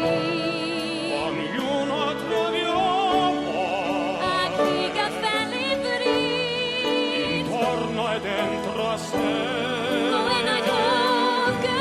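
Classical-crossover duet singing in operatic style, sustained notes with wide vibrato over held instrumental accompaniment.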